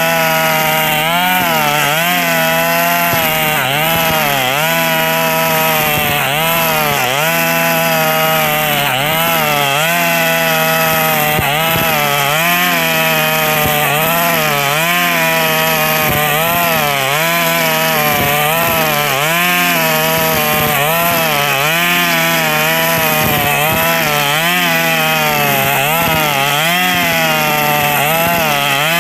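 KNC 4400 two-stroke brush cutter running at high speed, its pitch dipping and recovering over and over, roughly once a second, as the nylon line cuts through grass. The exhaust is corroded and full of small holes, which makes it very loud.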